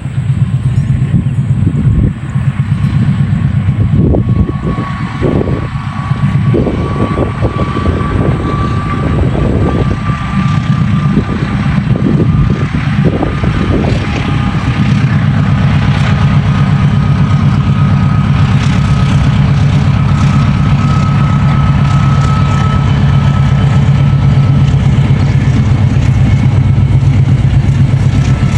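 Diesel-electric locomotive engine of an Indonesian passenger train running hard: a loud, steady low drone with a thin whine slowly rising in pitch over the middle of the stretch, and scattered knocks in the first half.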